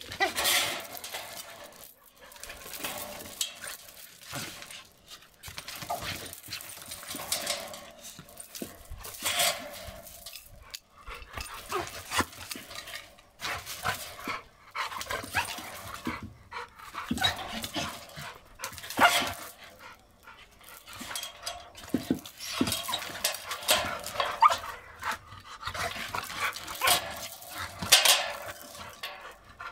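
Two dogs meeting and scuffling, with irregular barks and panting in short bursts.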